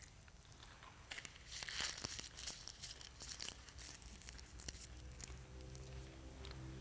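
Quiet crinkling, tearing and small clicks as the communion bread is taken and eaten. A low, faint held tone comes in about five seconds in.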